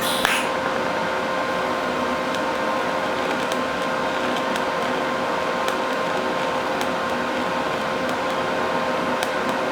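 Steady electrical hum with an even hiss and a few faint ticks, unchanging throughout.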